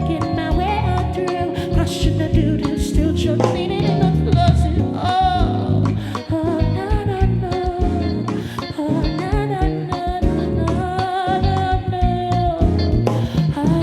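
Live soul/afrobeats band: a woman singing a melody with vibrato over guitar, bass guitar and drums.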